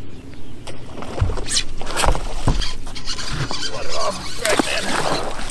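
Hooked largemouth bass thrashing and splashing at the water's surface beside a bass boat as it is reeled in, with a few dull thumps about one to two and a half seconds in.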